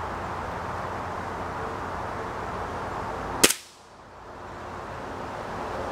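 A single shot from a Gamo pellet air rifle about three and a half seconds in, one sharp crack. It is the shot that finally hits the match.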